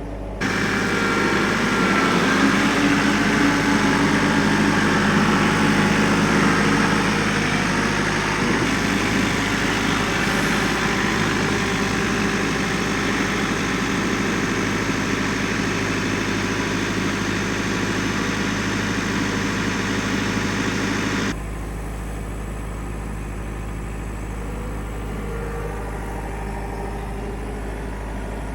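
Engine of a piece of machinery running steadily. The sound changes abruptly about half a second in and again about 21 seconds in, where it drops to a quieter, lower drone.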